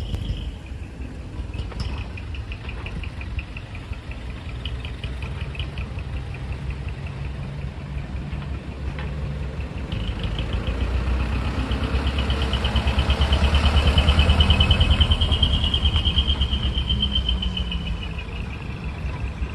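Large truck engine running with a deep, pulsing rumble that grows louder about halfway through, peaks, then fades, as a truck moves close by. A faint, rapid, high-pitched pulsing sound runs alongside.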